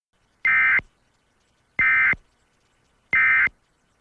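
Three short Emergency Alert System digital data bursts, the end-of-message signal that closes an alert: three identical buzzing beeps, each about a third of a second long, evenly spaced a little over a second apart.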